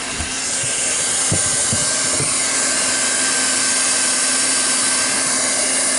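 Hot air welding gun blowing steadily while heat-welding TPO roofing membrane: a constant rush of air over a low fan-motor hum, reaching full strength within the first second.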